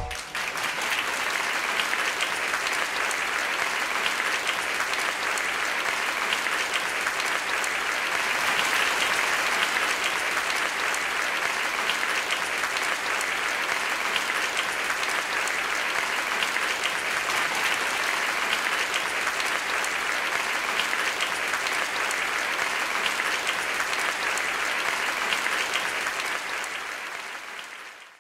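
Crowd applause sound effect: many hands clapping steadily, fading out over the last couple of seconds.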